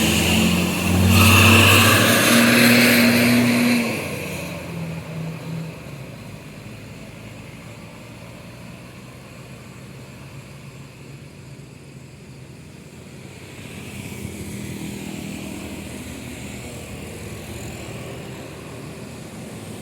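A heavy vehicle's engine passes close and loud for the first few seconds, then fades into steady road noise. Another vehicle approaches in the last few seconds.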